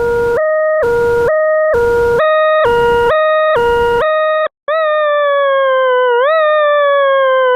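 Electronic two-tone siren alternating between a low and a high note about twice a second, with a hiss under each low note. After a brief cutout about four and a half seconds in, it changes to a slowly falling tone that jumps back up about every second and a half.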